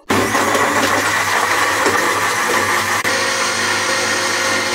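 Electric kitchen mixer-grinder blending mango pieces, milk, sugar and ice cubes into a shake. The motor starts abruptly and runs with a steady, loud whir, with one brief dip about three seconds in.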